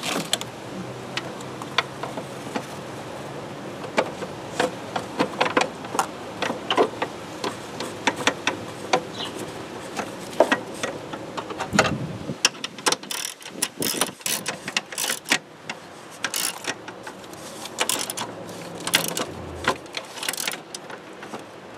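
Hand tools working bolts: a ratchet clicking in short irregular runs, with metal tools clinking against the fittings as the bolts are threaded back in and tightened.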